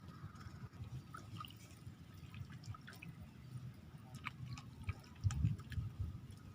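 Faint, scattered drips and small ticks of water over a low rumble, with a few soft low thumps about five seconds in.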